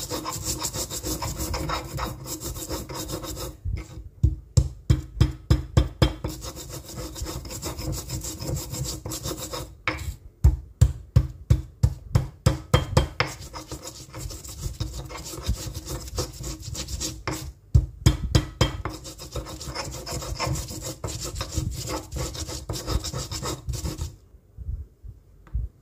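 Stone pestle grinding coriander seeds, kencur, turmeric and salt against a volcanic-stone mortar (cobek and ulekan): steady scraping and rubbing, broken by spells of quick pounding strokes, about four a second. The grinding stops shortly before the end.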